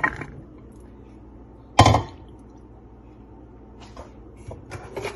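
Chopped raw papaya tipped from a bowl into a nonstick wok: one loud knock about two seconds in as the bowl meets the pan, then a few faint clicks.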